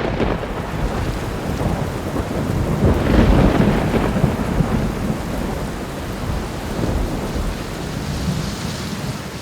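Thunderstorm: steady rain with rolling thunder, which swells about three seconds in and again around seven seconds. The sound dies away at the end.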